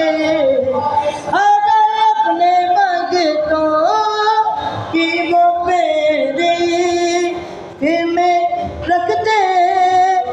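A high voice singing a naat, drawing out long, wavering notes that glide up and down between short breaths.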